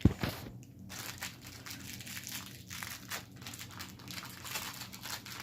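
Plastic candy wrapper crinkling and crackling in quick irregular ticks as it is handled and opened, with one sharp knock right at the start.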